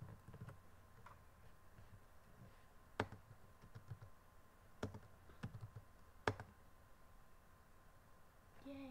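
Faint, scattered computer keyboard keystrokes: a few sharp separate clicks about a second or more apart, with lighter taps between them.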